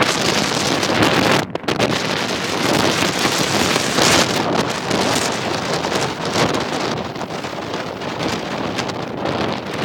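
Wind rushing and buffeting over the microphone of a camera held out of a moving car, mixed with the car's road noise. The rush drops out sharply for a moment about a second and a half in.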